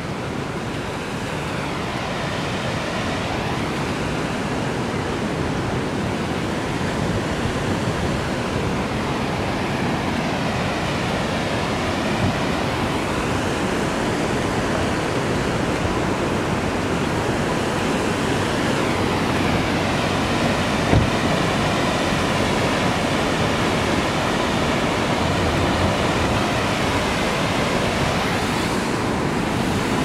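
Steady rushing of Firehole Falls' whitewater, heard from the roadside above the canyon, growing slightly louder over the first several seconds. One brief knock about two-thirds of the way through.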